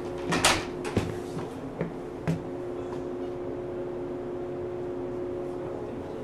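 Pneumatic doors of a JR West 475-series electric train car working: a short sharp hiss of air, then a thud about a second in and two smaller knocks, over a steady hum from the car's equipment.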